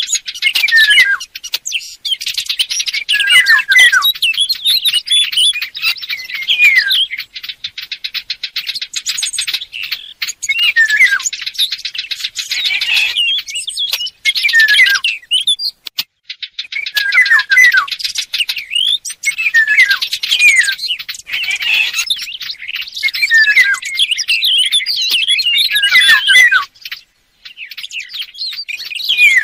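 Recorded songs of Eurasian golden orioles mixed with small Sylvia warblers ('fig birds'), played as a hunting lure call: dense chirping and warbling phrases with short breaks between them, and two stretches of rapid, even ticking.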